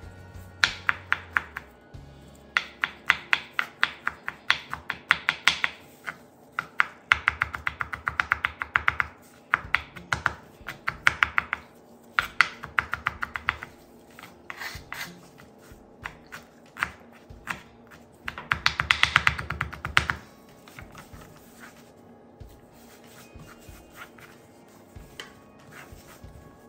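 Knife chopping on a cutting board in quick runs of strokes, about three to four a second, with pauses between runs, over background music.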